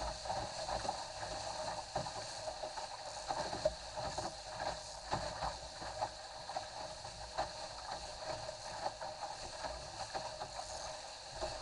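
Water rushing along a Cherub sailing skiff's hull as it sails fast through choppy water, with frequent irregular knocks as the hull meets the waves.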